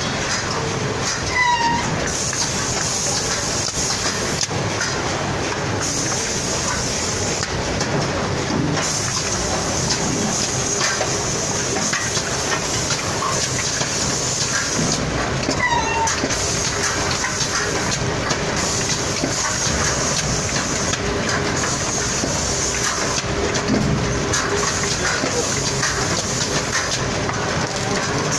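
Automatic cartoning machine packing glazed curd snack bars one at a time into cardboard cartons, running steadily with a dense, even mechanical noise.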